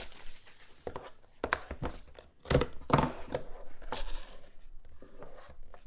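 Plastic shrink wrap crinkling and tearing as a sealed trading-card box is unwrapped, with knocks from the box and its lid being handled on the table. The crackles and knocks come irregularly, the loudest a little before halfway through.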